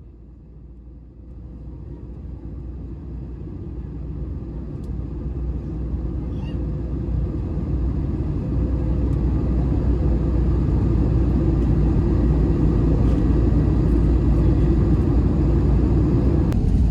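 Steady low rumble of a moving vehicle, growing louder over the first ten seconds and then holding steady.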